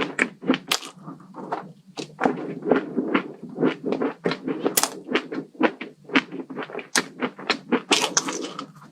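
Close-miked chewing and crunching of crisp food in the mouth, a quick irregular run of sharp crunches several times a second.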